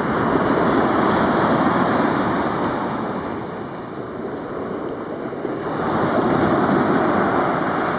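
Ocean surf washing up the sand. It is loud at first, eases off about halfway through, then swells again with the next wash.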